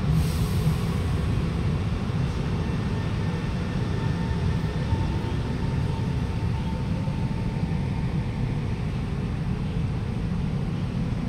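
Alstom Movia R151 metro train pulling out of the platform at a crawl of about 10 km/h under a temporary speed restriction: a steady low rumble of wheels and running gear, with a faint whine in the middle.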